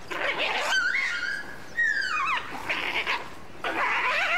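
Grey wolves squabbling over a carcass: snarling, with high cries that slide up and down in pitch between the snarls.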